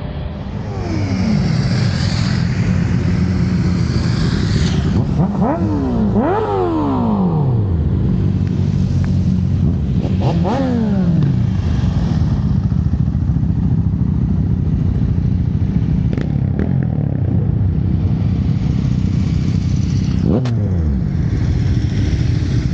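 Motorcycle engines idling with a steady rumble, with several throttle blips in which the revs shoot up and fall back to idle over a second or two.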